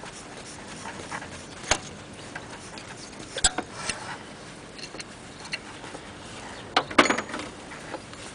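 Scattered clicks and short scrapes of a screwdriver working in the grooves of a metal engine pulley, scraping out grit and belt residue; the loudest cluster comes about seven seconds in.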